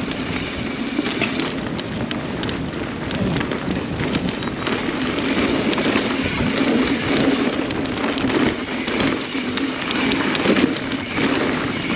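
Mountain bike rolling fast down a dirt trail: a steady crackling rush of tyres over dirt, roots and rocks, with many small knocks and rattles from the bike.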